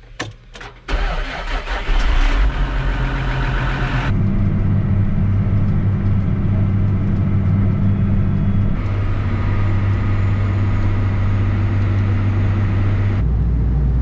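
Farm tractor's diesel engine cranking and starting about a second in, just after a few clicks at the key, then running steadily, heard from inside the cab. The engine note changes abruptly three times.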